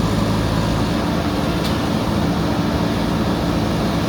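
Diesel engine of a backhoe loader running steadily.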